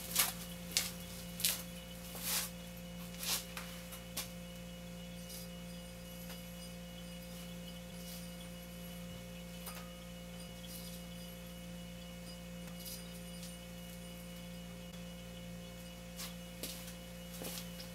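Steady electrical mains hum with the low room tone of a garage. A few soft clicks come about once a second in the first few seconds and again near the end.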